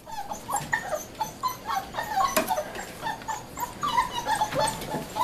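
Several Sheepadoodle puppies whining at once, many short high-pitched whines and yips overlapping, several a second. They are unhappy at being shut in a small room.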